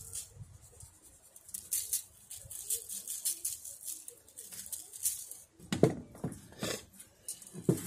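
Dry rub shaken from a spice jar, the granules pattering in light, quick ticks onto a venison backstrap and the aluminium foil under it. A few louder knocks come about six seconds in and again near the end.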